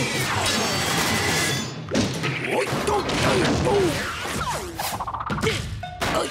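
Cartoon fight sound effects: a dense run of whacks, crashes and thuds, with short swooping yelps in the middle.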